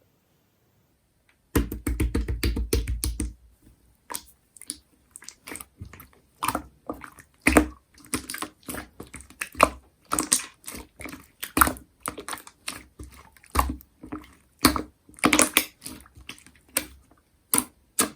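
Slime being pressed and squished by hand: a fast run of wet clicks and pops for about two seconds, then irregular sticky pops and crackles as it is worked.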